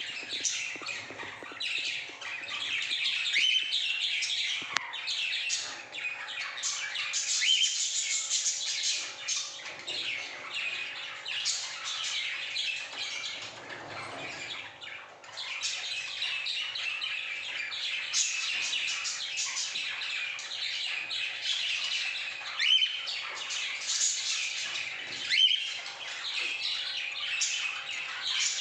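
Pet cockatiels chattering with dense, continuous chirps and squawks.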